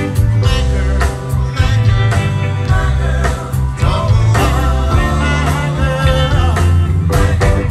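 A Motown-style song performed live: a vocal harmony group singing over a band with strong bass and guitar.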